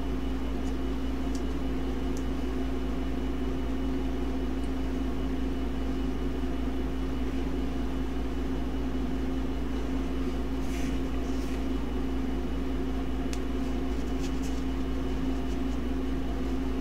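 Steady machine hum with a constant tone and a low rumble under it, unchanged throughout. A few faint ticks and rustles of trading cards and a plastic card sleeve being handled come a little past the middle.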